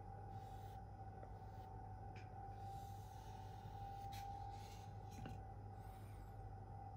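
Quiet scratchy strokes of a K390 steel knife blade drawn over a wooden strop loaded with 6-micron compound, coming about once a second: stropping to strip off the last of the burr. A faint steady whine and a low hum sit beneath.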